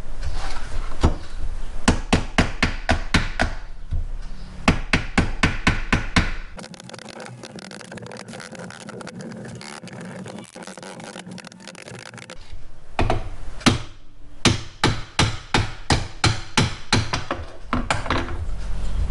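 Quick series of hammer blows on the drill press's electric motor, knocking at its rear end housing to free it from the shaft. The blows stop for about six seconds midway, then start again.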